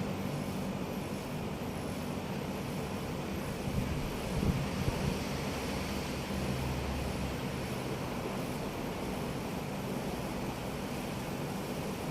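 Acson 2.5 hp split air conditioner outdoor unit running: a steady compressor hum under the even rush of its condenser fan. A few brief low knocks come about four to five seconds in.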